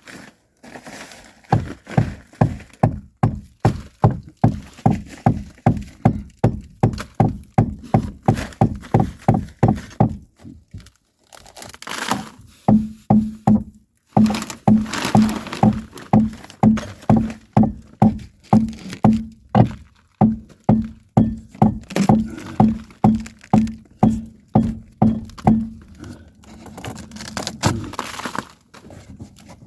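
Steady hammer blows on an old wooden floor beam, about two a second, to knock the nailed beam loose. There is a short pause about ten seconds in, then the blows resume with a short low ring on each strike.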